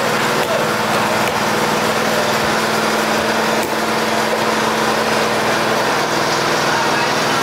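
A small engine runs steadily with an unbroken drone. Over it come a couple of faint knocks from a cleaver chopping fish on a wooden block.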